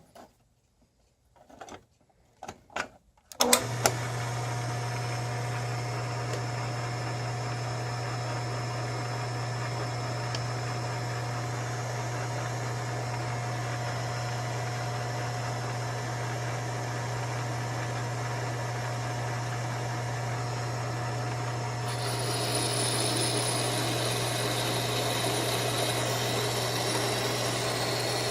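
A few clicks, then a Myford 7" lathe starts about three and a half seconds in and runs steadily with a low hum and a few steady tones. Near the end a higher hiss joins and it gets a little louder, as the boring bar cuts the inside of the piston ring under the longitudinal feed.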